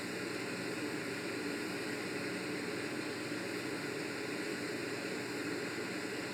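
Wood lathe, a KS Twister FU-180, running steadily with no cutting or sanding strokes heard: an even whirring hiss with a faint constant high whine.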